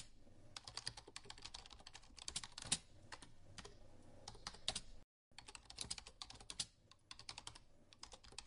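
Typing on a computer keyboard: a quick, uneven run of faint key clicks that breaks off completely for a moment about five seconds in.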